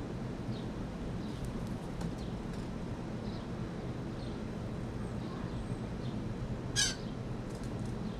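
A single loud, harsh bird call a little under seven seconds in, over faint scattered chirps and a steady low background rumble.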